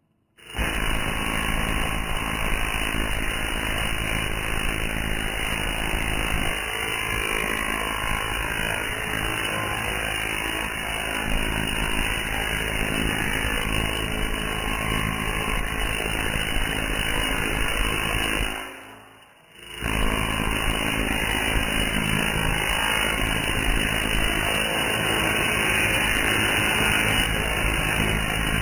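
Tesla coil firing, a loud steady buzz of its sparks arcing to a metal stand. It switches on about half a second in, cuts out for about a second two-thirds of the way through, then starts again.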